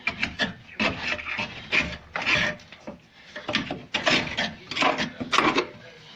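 Irregular rough scraping and rubbing strokes, by hand, on corroded car body parts.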